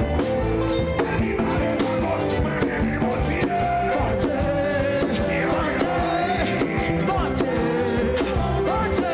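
Church band music with a steady drum beat and a singing voice.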